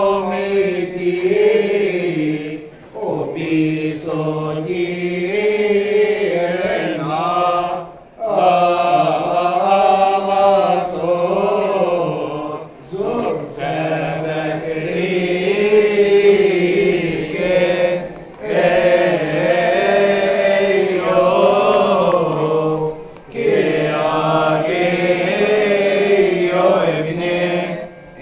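Men's voices chanting a Coptic Orthodox hymn in long, drawn-out melismatic phrases, with short breaks for breath about every five seconds.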